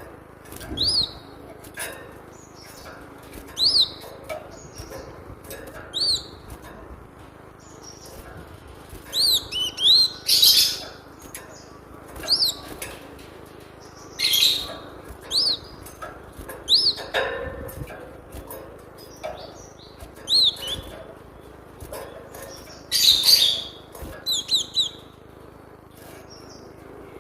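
Cinereous tit calling: short, sharp whistled notes repeated every second or two, mixed with a few louder, harsher bursts of song.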